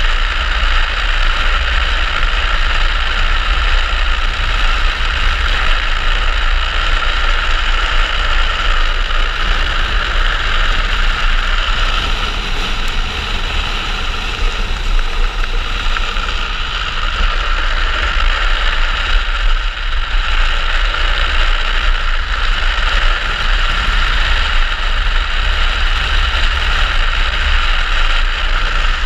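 Steady rushing roar of wind buffeting a helmet-mounted camera, with the wheels of an unpowered speed trike rolling fast on asphalt on a downhill run; it eases a little midway before building again.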